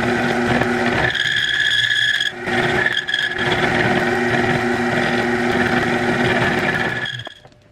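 Motor-driven shop machine running at speed with a steady whine over a grinding noise. The sound shifts about a second in and again after two seconds, then cuts off shortly before the end.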